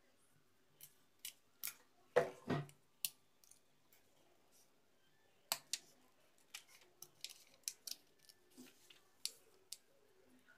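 A sheet of paper being handled and pressed against a wooden table: scattered sharp clicks and paper rustles, loudest a short crunching rustle about two seconds in, then a quicker run of clicks in the second half.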